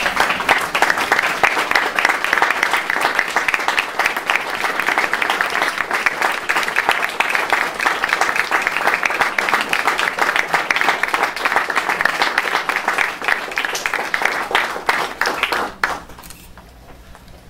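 Audience applauding steadily, a dense patter of many hands clapping, which stops fairly abruptly near the end.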